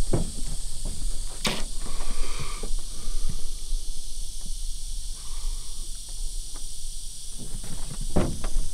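Steady high hiss with a low rumble underneath, and one sharp click about a second and a half in.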